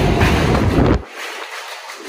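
New York City subway train running past, its noise mixed with wind buffeting the microphone. About a second in, the deep rumble cuts off and the sound drops to a quieter hiss.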